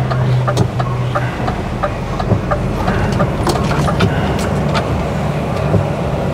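Mercedes Actros lorry's engine running as heard from inside the cab while driving, its steady drone easing off about a second in. Irregular sharp ticks of rain hit the cab and windscreen.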